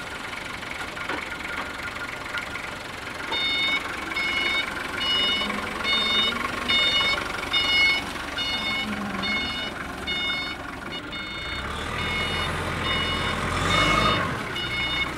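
XCMG FD30T diesel forklift running, with its backup alarm beeping steadily from about three seconds in, just under two beeps a second.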